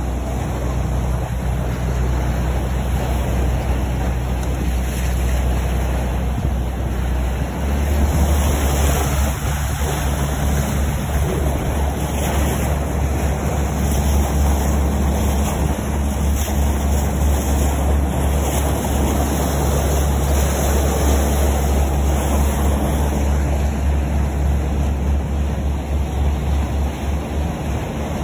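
Boat engine running steadily, its low rumble getting louder about eight seconds in, with water rushing and splashing along the hull and wind buffeting the microphone.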